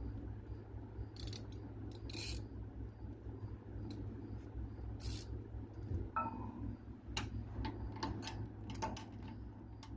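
Metal hand tools clinking and clicking: a socket and extension being picked out and fitted to a ratchet, in scattered irregular clicks, with one short ringing clink about six seconds in, over a steady low hum.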